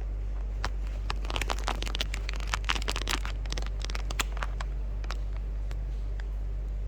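Silkworm moths' wings fluttering and scrabbling against a surface: a flurry of light, rapid, irregular crackling clicks for about three seconds, densest in the middle, over a steady low hum.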